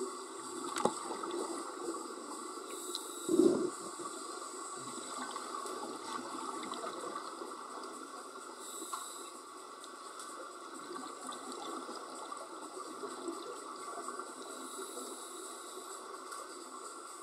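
Underwater ambience with a steady water hiss, a sharp click about a second in, and a short loud rush of scuba exhaust bubbles about three and a half seconds in.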